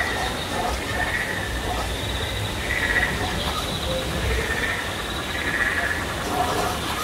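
A short animal-like call repeating about every second and a half over steady outdoor background noise with faint crowd voices.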